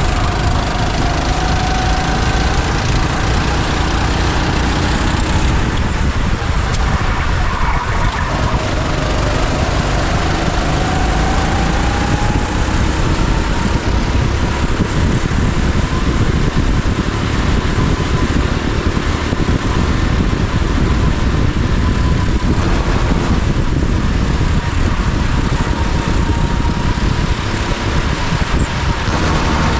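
Go-kart engine running hard on track: its pitch drops about a quarter of the way in, then climbs steadily for several seconds, and dips and climbs again later.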